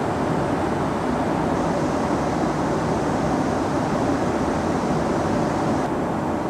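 Steady roar of jet aircraft in flight, an even rushing mix of engine and wind noise.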